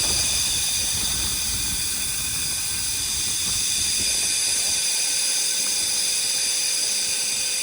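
Steady high-pitched machine whine with hiss, several tones held at once, over a low rumble that drops away about five seconds in.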